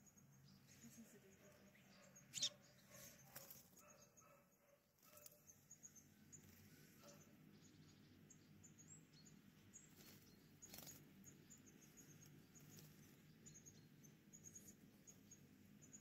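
Near silence: quiet garden ambience with faint, scattered bird chirps and a sharp click about two seconds in, with a weaker one later.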